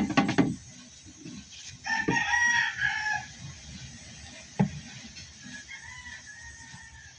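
A rooster crowing, one loud crow about two seconds in, then a fainter crow near the end, with a single sharp knock between them.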